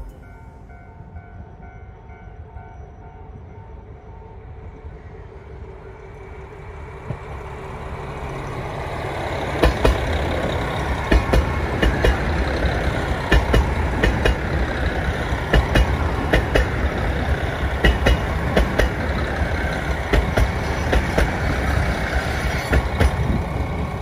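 A Kiha 201 series diesel train runs in alongside the platform. Its rumble grows louder from about six seconds in, and from about ten seconds its wheels click regularly over the rail joints.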